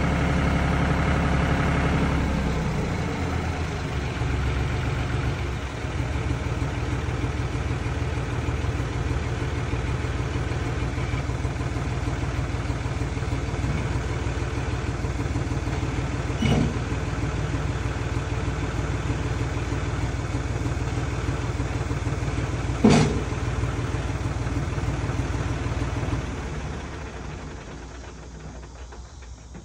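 John Deere 5300 tractor's diesel engine running, dropping to a lower idle about two seconds in. There are two sharp knocks, and near the end the engine winds down and stops as it is shut off.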